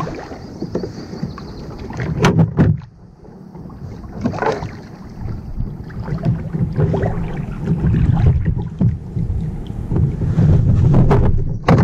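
Wind buffeting the microphone in a low, fluctuating rumble, with water sloshing and a few short knocks and splashes at the side of a small plastic boat as hands work in the water beside the hull.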